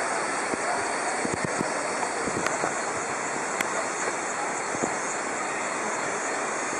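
Steady rushing of a small waterfall cascading into a rock pool, an even wash of water noise.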